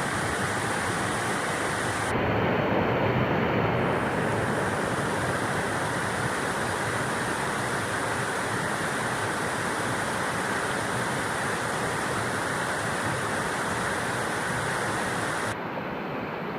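Steady rush of water tumbling over rocks into a rock pool. The sound shifts in tone about two seconds in and again near the end.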